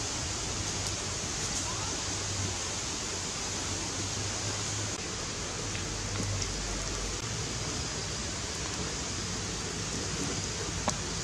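Steady sizzling hiss of shrimp cooking on a hot stone slab over a wood fire, with a few faint pops and a sharper tick near the end.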